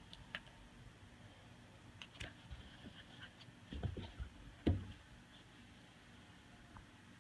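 Soft thumps and light scuffling of a wolf pup playing on carpet, with a cluster of thumps about four seconds in, the loudest near the five-second mark.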